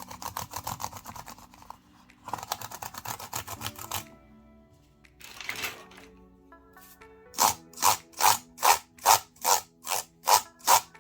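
A cloth rubbing over an Apple iMac keyboard, setting the keys clicking and rattling in quick runs. Near the end it turns to steady back-and-forth scrubbing strokes, about two and a half a second, the loudest part. Background music plays throughout.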